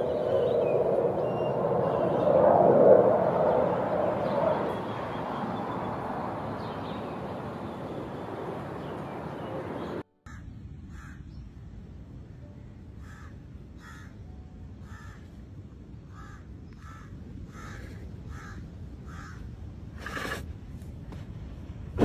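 A rough noisy sound for about the first ten seconds. After a sudden cut, a bird calls over and over in short high calls, about two a second.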